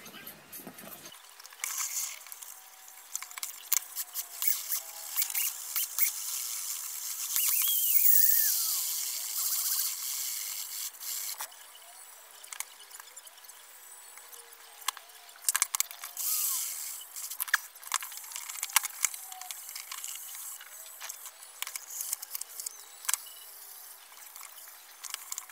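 Small clicks, taps and scraping from a screwdriver and metal parts being handled on a brass pendulum clock movement as it is taken apart, with a louder rustle and a short falling squeak about eight seconds in.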